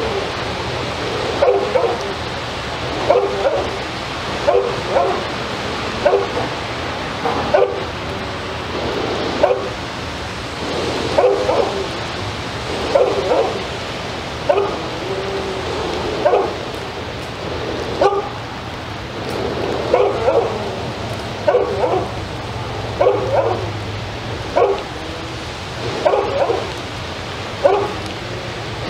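A dog barking over and over, a single bark or a quick pair of barks every second or two.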